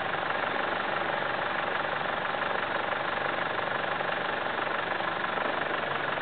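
Land Rover Defender 4x4 engine idling steadily.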